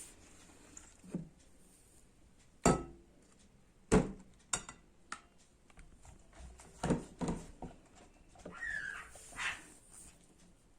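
Spoon knocking against the bowl while stirring a thickening shaving-foam slime mixture: a few sharp separate knocks, the loudest about three and four seconds in, with more around seven seconds.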